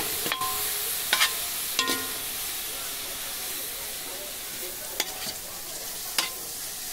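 Coconut cajeta (grated coconut in melted panela and butter) sizzling with a steady hiss in a large metal pot, the mixture still wet as it cooks down. A metal ladle stirs through it, scraping and clinking against the pot several times in the first two seconds and twice more near the end, some clinks ringing briefly.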